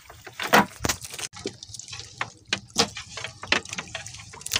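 Seawater splashing and dripping in irregular bursts as a wet fishing net is hauled into a small boat, the loudest splash about half a second in.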